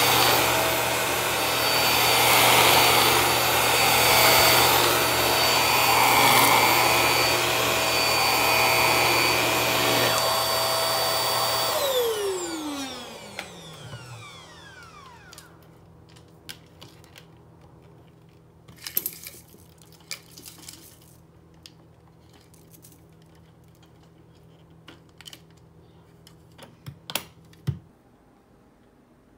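Hart vacuum cleaner running on carpet with a steady motor whine. It is switched off about 12 seconds in and its whine falls away as the motor spins down. A few scattered clicks and knocks follow later.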